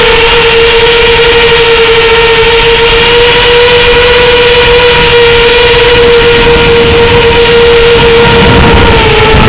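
FPV quadcopter's motors giving a loud, steady high whine with little change in pitch, dipping slightly near the end.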